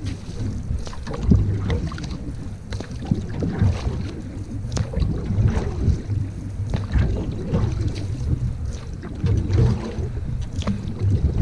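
Wind rumbling on the microphone from a canoe on the water, with uneven swells and scattered short knocks and splashes.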